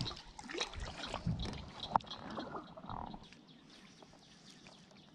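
Handling and water noise from a kayak: scattered knocks and rustling for about three seconds, then it drops quieter with faint ticking.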